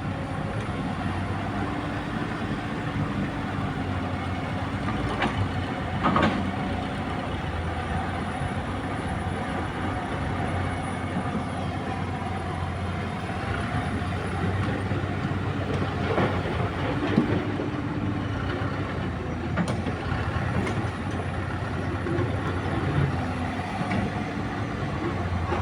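Komatsu PC200 hydraulic excavator's diesel engine running steadily under work, with a few short metallic clanks spread through.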